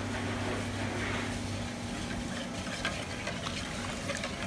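Metal spoon stirring brown butter sauce in a stainless steel bowl, with faint light scrapes and clinks, over a steady low hum of kitchen machinery.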